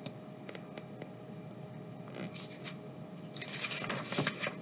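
Paperback picture book being handled and its pages turned: soft paper rustling about two seconds in and again near the end, with a few faint clicks before.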